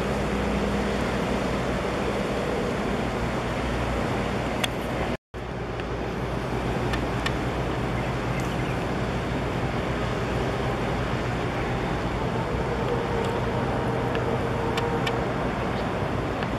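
Steady low rumble of ship engines with water wash and wind noise as vessels pass close by. The sound cuts out for a moment about five seconds in.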